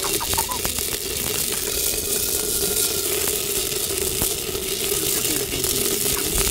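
Cañihua grains crackling and popping as they toast in a hot clay pot, stirred with a stick: a dense, steady crackle of many tiny pops over a hiss.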